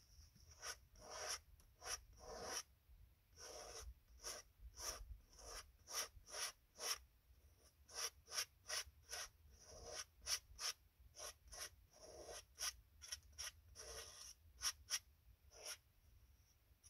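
Palette knife scraping oil paint across a canvas in repeated short strokes, about two a second, with a few longer drawn-out scrapes.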